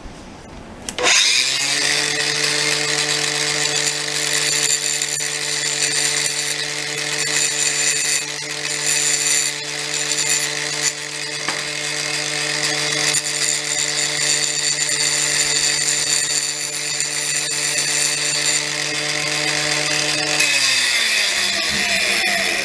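Cordless drill spinning a grinding disc to grind the burrs off bolts: a steady motor tone with a scratchy grinding hiss that comes and goes as the metal is worked. It starts about a second in and winds down near the end.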